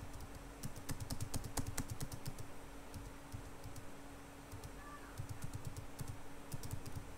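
Computer keyboard keys tapped in two quick runs of clicks, about a second in and again around five seconds in, over a faint steady hum.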